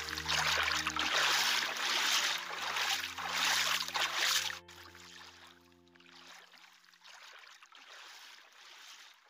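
Floodwater sloshing and splashing with the steps of someone wading through it, loud for about the first half and then much fainter. Soft sustained music chords play underneath and fade out partway through.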